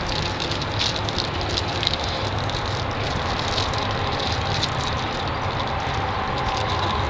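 Steady open-air background noise: a low, fluctuating rumble with scattered faint clicks above it.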